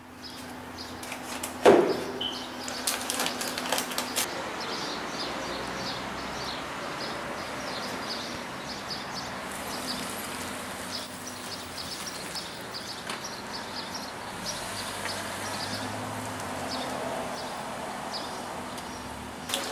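Outdoor ambience with small birds chirping in short, repeated high notes. There is one sharp knock about two seconds in, followed by a few lighter clicks.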